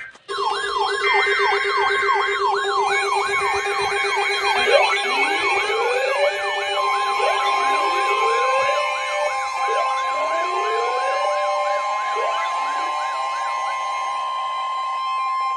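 Several electronic sirens sounding together: a fast yelp sweeping up and down about three times a second, slower wails rising over and over every second and a half or so, and steady held tones, one of which comes in about halfway through.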